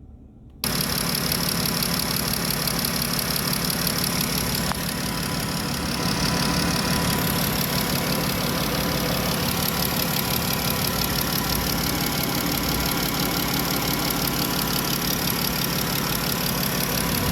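Chrysler Town & Country's 3.6-litre V6 engine idling steadily, heard close up. It cuts in abruptly about half a second in.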